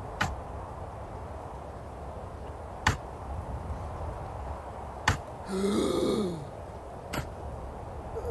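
A shovel blade striking hard, dry ground four times, about two seconds apart. Just after the third strike comes a short low groan from a person, rising and then falling in pitch.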